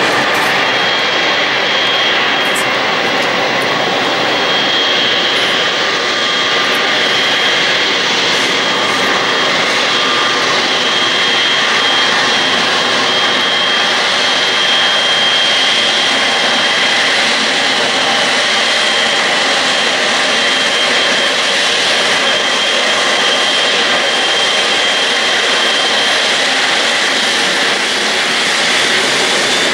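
Boeing 777 twin-engine jet airliner's engines running: a loud, steady jet roar with a thin, high, steady whine over it.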